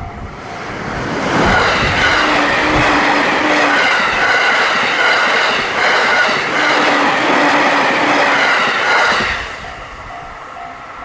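A train passing through a level crossing. It grows loud about a second in, holds for about eight seconds, then falls away quickly. The crossing's warning bell dings steadily before and after the train and is drowned out while it goes by.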